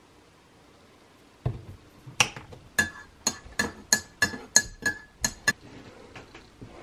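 Metal teaspoon stirring tea in a ceramic mug, clinking against the rim and sides about ten times in quick succession, roughly three a second, each clink ringing briefly. A dull knock comes just before the stirring starts.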